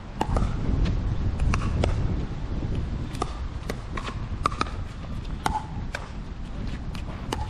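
Pickleball paddles striking a hollow plastic ball in a rally: a run of sharp, hollow pops at irregular intervals, some close together, over a low rumble.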